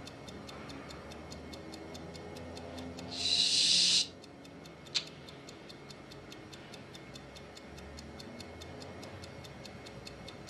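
Clock ticking steadily and rapidly, about five ticks a second, under faint low tones. About three seconds in, a short, loud hiss lasts under a second, and a single sharp click follows about a second later.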